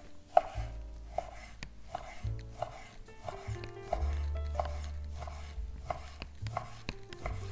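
Chef's knife slicing bacon on a wooden cutting board, the blade knocking on the board in a steady rhythm of short knocks, over background music.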